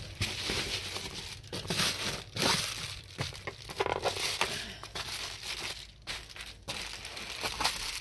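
Double-sided foil heat insulation crinkling and crackling in irregular bursts as it is handled.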